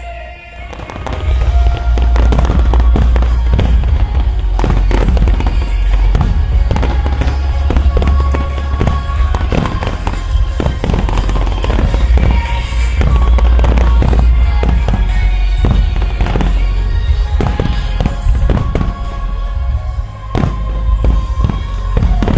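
Dense barrage of fireworks, many bursts and crackles a second, starting about a second in, over loud music from a synchronised music-fireworks show.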